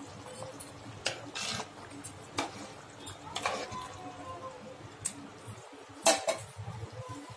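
Metal spoon stirring thick chicken curry in an aluminium pot, scraping and clinking against the pot's sides and bottom in a run of separate strokes. The loudest clink comes about six seconds in.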